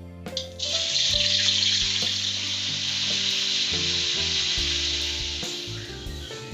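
Food sizzling in hot oil in a pan. The sizzle starts suddenly about half a second in, as if the ingredients have just gone into the oil, then slowly dies down. Background music plays underneath.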